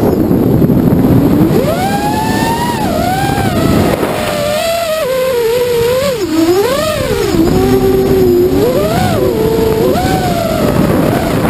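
Vortex 230 Mojo quadcopter's motors and propellers, heard from its onboard camera: a rushing noise at first, then from about a second and a half in a loud whine that keeps rising and falling in pitch as the throttle changes.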